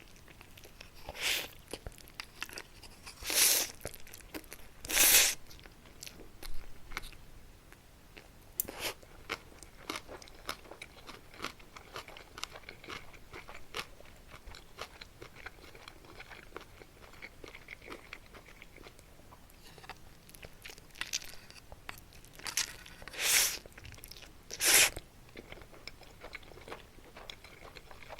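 Close-miked crunching and chewing of Muktaekkang, a crisp puffed Korean snack. There are loud crunching bites twice near the start and twice near the end, with a run of small crisp chewing crunches between them.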